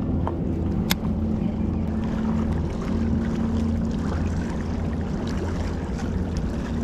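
Outdoor wind and water washing against jetty rocks, with a steady low hum underneath and one sharp click about a second in while a baitcasting reel is cranked.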